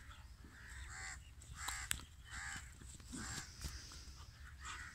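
Crows cawing in a steady series of harsh calls, one to two a second.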